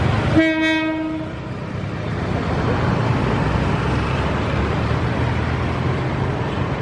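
Locomotive horn sounding one short single-tone blast of about a second near the start, followed by the steady rumble of the train.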